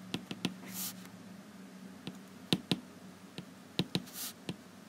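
Stylus tip tapping and clicking on a tablet's glass screen during handwriting: a scatter of light, sharp ticks at irregular spacing with quiet between them.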